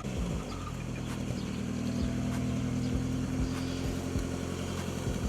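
A 1999 Honda Civic Si's B16A2 four-cylinder engine running at a steady low speed while the car is moved, with a few faint knocks over it.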